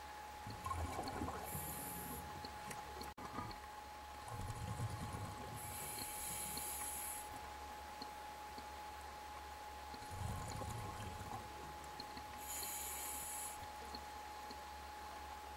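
A scuba diver breathing through a regulator underwater, three breaths about six seconds apart. Each breath is a low, muffled inhalation followed by a hissing burst of exhaled bubbles. A faint steady tone runs underneath.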